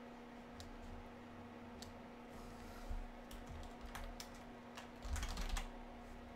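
Computer keyboard typing: scattered single keystrokes with a quick run of keys about five seconds in, over a steady low hum.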